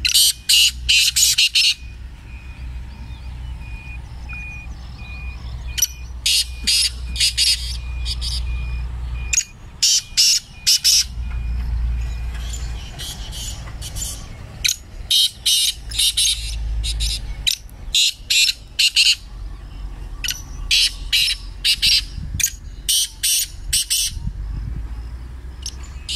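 Caged francolins (teetar) calling in repeated phrases of rapid, shrill notes. The phrases last a second or two each and come again after short pauses.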